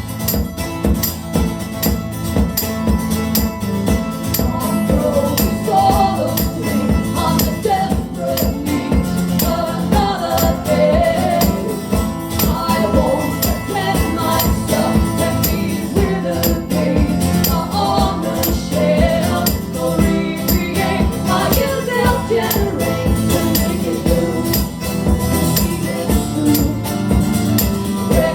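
A band playing live: an instrumental passage with a steady percussive beat under a winding melody line, no lyrics sung.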